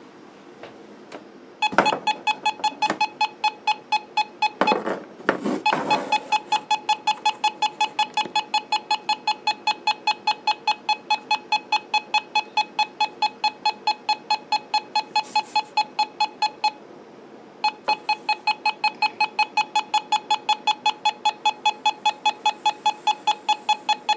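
Handheld microwave (RF) meter beeping rapidly, about four beeps a second, as it registers a signal; the beeping starts about two seconds in, stops briefly near the two-thirds mark, then resumes. The owner takes the reading for a microwave weapon attack. A couple of rustling knocks from handling the antenna come around five seconds in.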